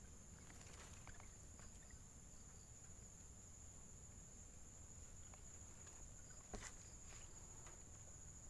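Faint, steady high-pitched insect trill, cricket-like, over near silence, with a few faint ticks and one sharp click about six and a half seconds in.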